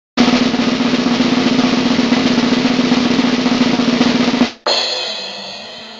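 Intro music sting: a fast snare drum roll for about four and a half seconds, cut off by a single hit that leaves a ringing chord slowly fading.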